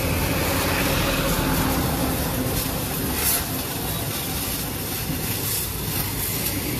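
High-pressure water jet spraying steadily against the underside of a tractor, a constant rushing noise with no breaks.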